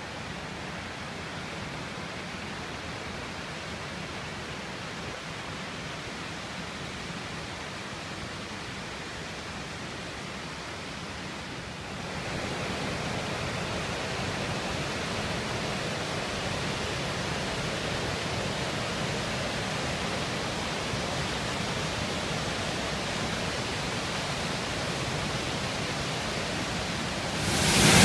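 Steady rush of a fast-flowing river over rocky rapids, faint at first. About twelve seconds in it gets louder and nearer. Just before the end it jumps to the much louder rush of a waterfall close by.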